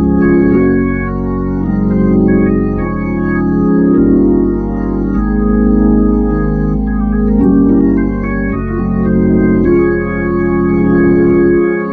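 Hammond-style drawbar organ playing sustained block chords over deep bass notes, the chords changing every second or two with gentle swells in loudness. It is a simple, laid-back chordal accompaniment with no runs or fills, the style meant to back a singing choir.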